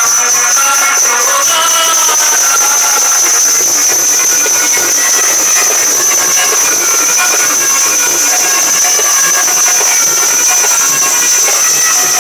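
Public-address system giving a steady high-pitched whine over loud hiss, with the tail of the stage music fading out in the first couple of seconds.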